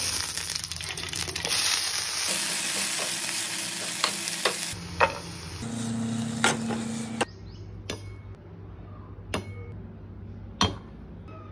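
Green chillies, herbs and garlic sizzling in hot oil in a steel pan, stirred with a metal spatula that scrapes and taps the pan a few times. The sizzling stops about seven seconds in, and a few sharp metal clinks follow as the fried greens are scraped into a steel bowl.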